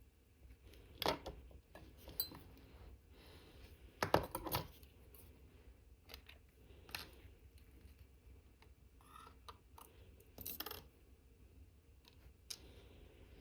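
Faint, irregular small metallic clicks and taps of watchmaker's tweezers and tools handling the tiny parts of a watch movement being assembled, a cluster of quick ticks a little after four seconds in.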